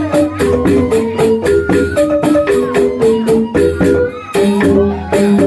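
Balinese rindik bamboo xylophones playing a fast interlocking melody of short struck notes, with a voice singing over it.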